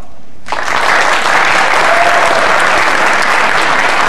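Audience applauding, breaking out suddenly about half a second in and holding steady.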